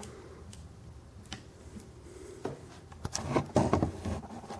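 Handling of a small diecast scale excavator model: scattered light clicks, then a cluster of louder knocks and rustles about three seconds in as the model is moved.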